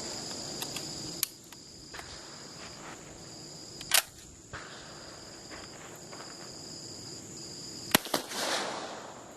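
A single shot from a Steyr M1888/95 rifle loaded with an 8x50R cast-bullet load, fired from a distance as a first test-fire, about eight seconds in, with a short echo after it. A sharp click comes about halfway through, and insects trill steadily throughout.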